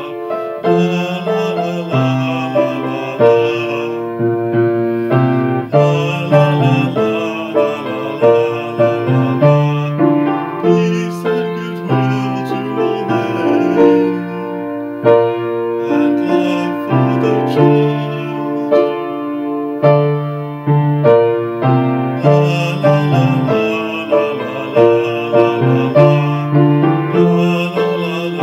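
Instrumental music on a piano-toned keyboard: held chords under a slow melody, the notes changing about once a second, with no singing.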